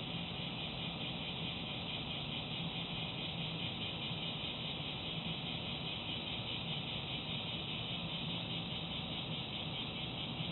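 Steady outdoor background noise: a constant high hiss over a low, even hum, with no distinct sounds standing out.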